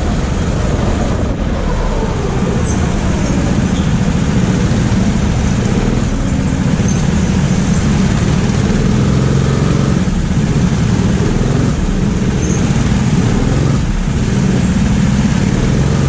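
Go-kart engine running steadily at low revs as the kart rolls slowly in a queue of karts, heard close up from the kart itself.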